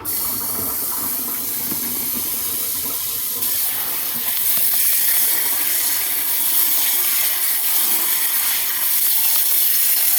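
Water spraying hard from a kitchen faucet's handheld pull-out sprayer, rinsing the soap off a load in a mini washing machine tub. It comes on suddenly and grows a little louder about four seconds in.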